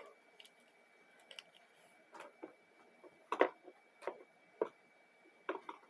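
Lollipops and snack packages being handled and put away: scattered light clicks and taps, the loudest about three and a half seconds in.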